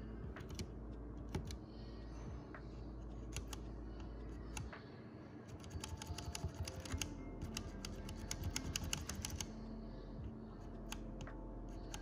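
Ajazz pink linear switches, factory-lubed and with their keycaps off, pressed by a fingertip in the plastic-framed Ajazz K620T keyboard, giving short clacks. Single presses come a second or so apart at first, then a fast run of presses starts about halfway through, and the pace slows to a few presses near the end.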